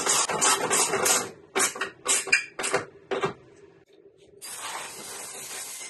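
Hand ratchet on an extension driving a bolt home, in quick runs of clicking for about three seconds. A steady hiss of unknown source starts near the end.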